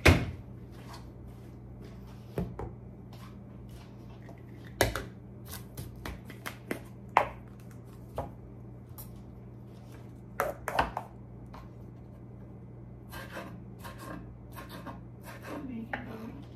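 A kitchen knife and tomatoes knocking and tapping on a wooden cutting board as the tomatoes are cut: scattered sharp knocks, the loudest right at the start. A steady low hum runs underneath.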